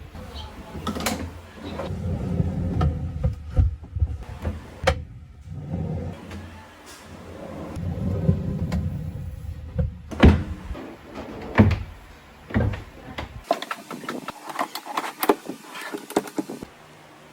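Plywood drawers on metal drawer slides running open and shut in long rumbling pulls, with sharp knocks and clicks as the handle-less fronts are pushed closed. There is a quicker run of light clicks near the end.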